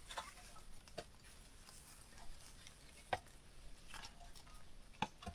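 About half a dozen faint, sharp clicks and knocks, spread irregularly over a quiet background.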